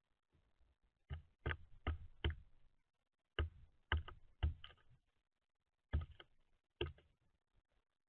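Black-billed magpie pecking and hammering at peanuts in a feeder tray: sharp taps in three bursts of three or four.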